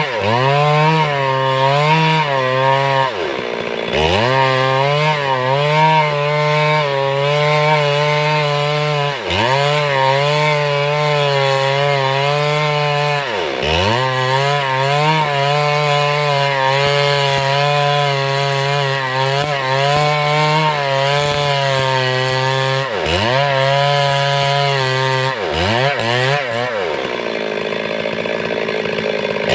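Stihl MS 382 two-stroke chainsaw ripping lengthwise through a timber beam at high revs. Several times its engine speed drops sharply and climbs straight back up.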